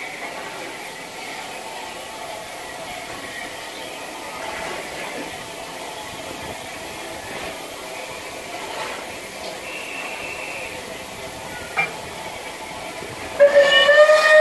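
Bulleid Battle of Britain class steam locomotive 34081 '92 Squadron' standing and simmering with a steady hiss of steam. Near the end its steam whistle starts a loud blast, the signal for departure.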